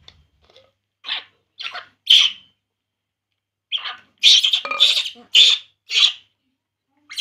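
Baby macaque crying: eight short, high-pitched calls in two bursts, three and then five louder ones in quick succession.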